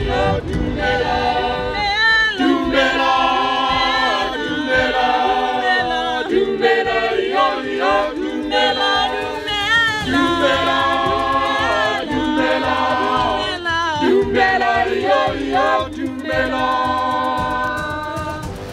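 Background music: a group of voices singing together in harmony, with wavering held notes and sliding pitches.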